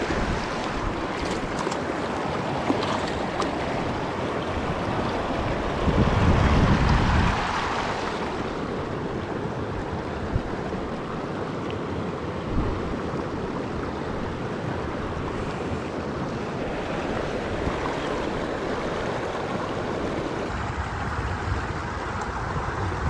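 Shallow stream water running steadily over rocks, with wind on the microphone; a louder low rumble of wind noise about six seconds in lasts for a second or so.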